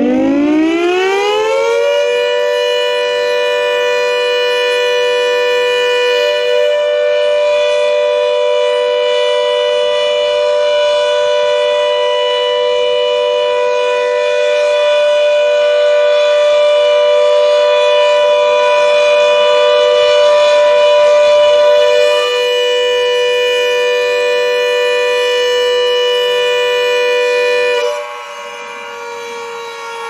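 Air-raid siren finishing its wind-up in the first two seconds, then holding a steady wail of several tones sounding together. About 28 seconds in it drops sharply in level and its pitch begins to fall as it winds down.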